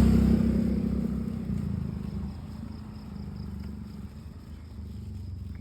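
Low rumble of a motor vehicle's engine, loudest at first and fading over about two seconds to a faint steady hum.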